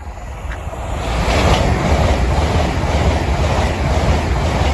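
LNER Azuma express train passing the level crossing at speed. Its rush of wheels and air builds over about the first second into a loud, steady roar with a deep rumble and some clickety-clack from the rails.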